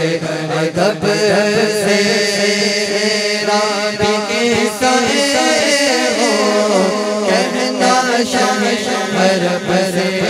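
Male voice singing an Urdu naat unaccompanied, in long melodic phrases, over a steady drone of other men's voices chanting zikr in the background.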